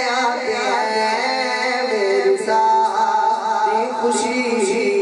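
A male reciter sings a devotional naat into a handheld microphone, amplified through a PA system. His voice moves in ornamented, wavering phrases and holds one long note about halfway through.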